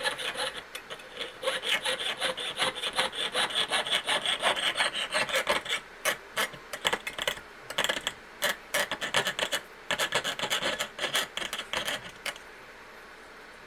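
Jeweller's saw cutting through a silver strip in quick back-and-forth strokes, which stop a little before the end.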